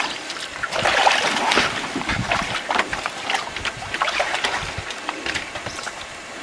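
Water splashing and sloshing against a canoe as paddles dip in, in short irregular splashes about every half second.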